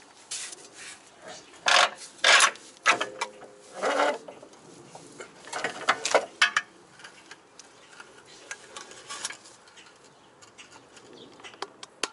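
Irregular scraping and knocking of rusty metal suspension parts as a Honda Accord's front spindle is wiggled loose from the upper control arm and wheel well. A run of rubbing, rasping bursts comes over the first six seconds, then only scattered light clicks.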